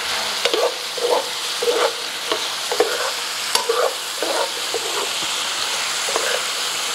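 Chicken and mushrooms sizzling in a mustard pan gravy in a sauté pan, with a metal utensil stirring and scraping through them over and over, roughly one to two strokes a second over the steady sizzle.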